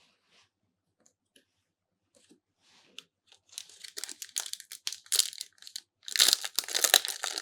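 A trading-card booster pack wrapper being torn open and crinkled by hand. There are a few faint ticks at first, then crinkling starts about three seconds in and grows loud near the end.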